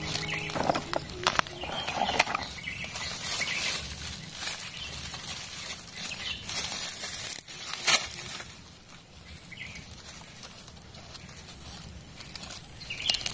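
Gloved hands breaking apart rotten wood and digging through dry soil and leaf litter: rustling and crumbling with scattered sharp cracks, busier in the first half and quieter after.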